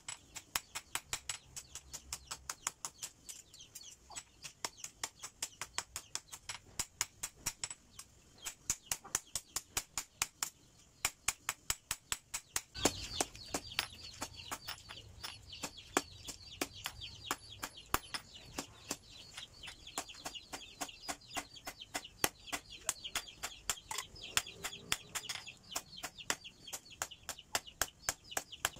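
Hand hammer striking a red-hot steel knife blank on a block anvil, about three sharp blows a second with a short pause near the middle, forging the knife's tang. A steady background noise comes in about halfway through.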